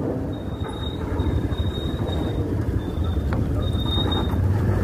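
Steady low rumble of vehicle engines boarding a roll-on/roll-off ferry over its steel ramp, with a thin high squeal that comes and goes above it and a short click about three seconds in.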